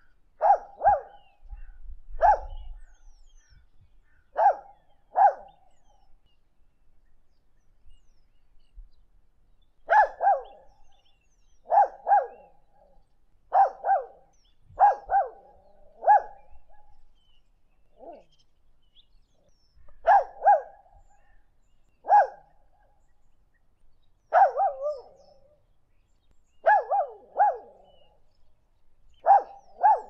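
A dog barking in short bursts of one or two sharp barks, repeating every second or two. There is a pause of several seconds about a fifth of the way in.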